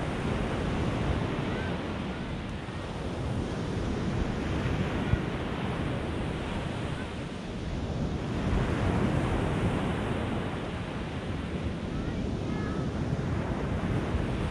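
Small Mediterranean waves breaking and washing up the beach, with wind buffeting the microphone; the sound swells louder about eight seconds in.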